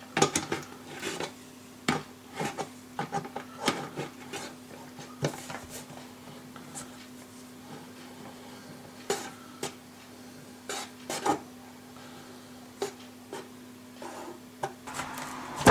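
Pliers gripping and turning a nut on the sheet-metal cover of an electric oven as it is tightened: irregular sharp metallic clicks and scrapes. They come thickly for the first several seconds, then sparser.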